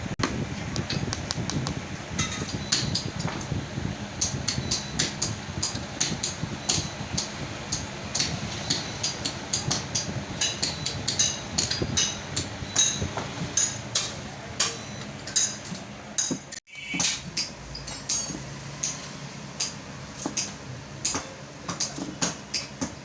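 Rapid, irregular sharp taps and knocks, as of a hand tool striking, over a steady mechanical hum; the sound drops out for an instant about two-thirds of the way through.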